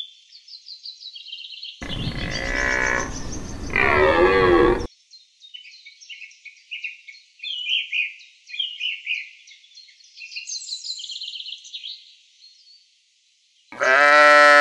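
Birds chirping continuously. A loud, drawn-out farm-animal call runs from about two seconds in to about five seconds, and a loud bleat comes near the end.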